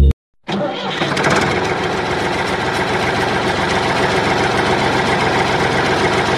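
Small electric motor and gears of a homemade toy tractor running steadily, a whirring with a fine rapid rattle; it starts about half a second in after a brief silence.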